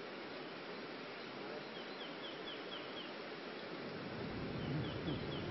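Outdoor background hiss with a bird calling two quick series of short, high, falling notes, about five a second, the first about two seconds in and the second near the end.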